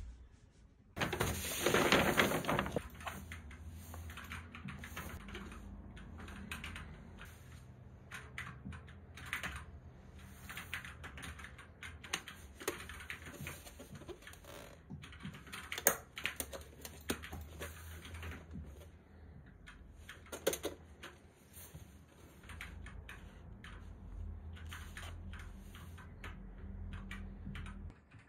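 Hands handling plastic painting supplies: a loud rustle of packaging about a second in, then many small clicks and taps of a plastic paint palette and other supplies being picked up and set down, over a low steady hum.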